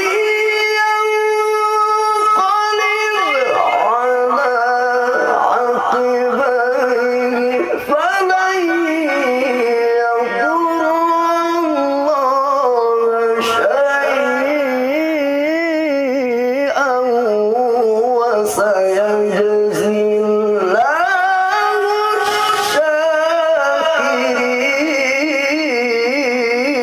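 A man reciting the Quran in a melodic, ornamented tilawah style: long held, wavering notes and sliding pitch in one drawn-out melodic passage, with short breaks about eight and twenty-one seconds in. He is reciting through a bad cough, which the uploader says strongly affects his voice.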